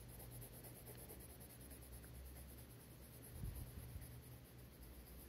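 Faint scratching of a colour being shaded onto paper in short strokes, over a low steady hum.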